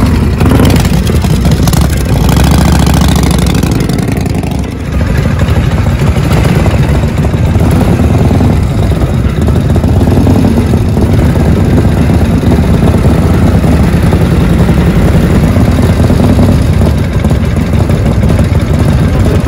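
Vintage Harley-Davidson V-twin chopper engines idling loudly, with a brief drop in level about five seconds in.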